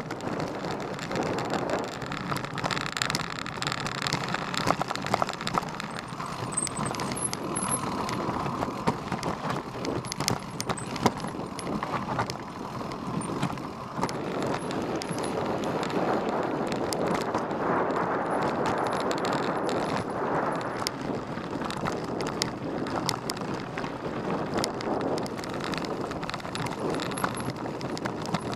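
Mountain bike rolling over a dirt and rocky trail, picked up by a bike- or helmet-mounted camera: tyres crunching over gravel and stones with frequent small knocks and rattles from the bike, under a steady rush of rolling noise.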